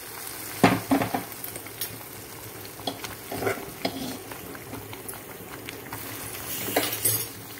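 A spoon stirring a thick, simmering rice and jaggery-milk pudding in a steel pan, with a steady sizzling hiss. The spoon scrapes and knocks against the pan about eight times, the loudest about a second in and again near the end.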